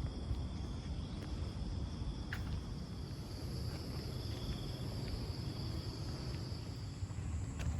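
Insects chirring in a steady high drone that fades out near the end, over a low rumble of wind or handling noise on the microphone.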